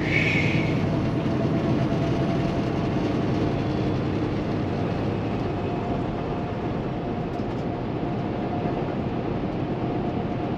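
Steady cab drone of a Kenworth T680 semi truck cruising on the highway: its Paccar MX-13 diesel engine and road noise, heard from inside the cab, with a faint steady whine.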